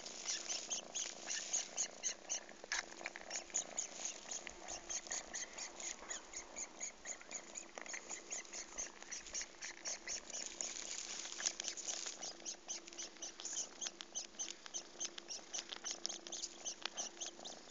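Kitten purring with a steady rapid rasp, a faint thin whistle running through its breathing.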